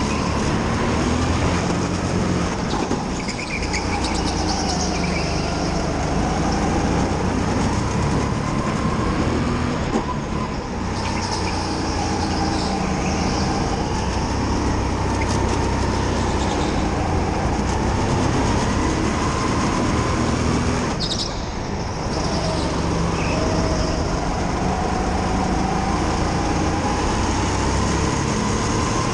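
Onboard sound of a Sodi rental go-kart at racing speed. The kart's motor runs continuously with a whine whose pitch rises and falls with speed through the corners, over a steady rumble from the kart, and briefly drops away about three-quarters of the way through.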